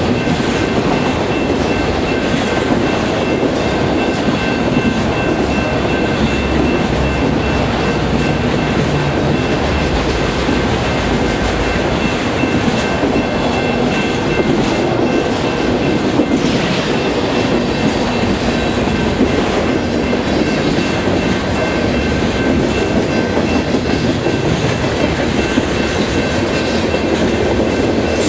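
Freight train cars, autoracks and centerbeam flats, rolling past: a steady rumble with the clatter of steel wheels on the rails and a faint, steady high tone above it.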